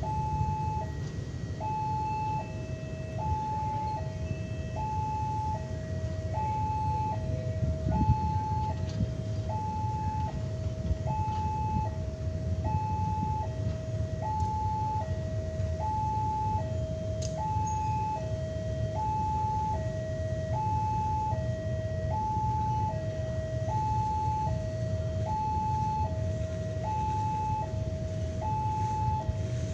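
Railway level-crossing warning alarm sounding continuously, a two-tone electronic signal switching between a higher and a lower note about every three-quarters of a second, which warns that a train is approaching. A steady low rumble lies underneath.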